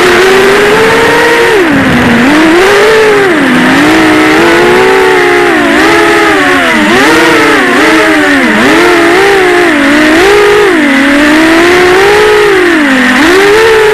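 Six-inch FPV quadcopter's four T-Motor Velox 2207 2550KV brushless motors spinning Gemfan 6045 props, heard from the camera on board: a loud whine whose pitch swings up and down over and over as the throttle is punched and chopped in freestyle flying.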